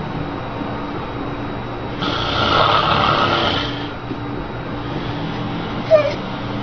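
A sleeping man's snore: one long, loud snore starting about two seconds in and lasting nearly two seconds, over a steady low hum. A short sharp sound follows near the end.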